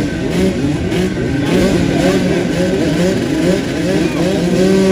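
Several motocross bikes' engines revving, their pitch rising and falling over and over, overlapping one another. Near the end one engine settles into a steady held note.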